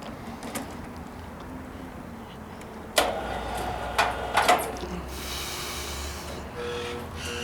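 Low steady engine rumble with a handful of sharp knocks and clatters about three to four and a half seconds in, followed by a short hiss.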